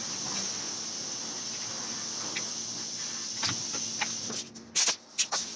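Hand tools clicking against a Honda K24 aluminum engine block during a HeliCoil repair of stripped bolt threads. A few scattered sharp clicks, with a cluster of louder ones near the end, over a steady high hiss.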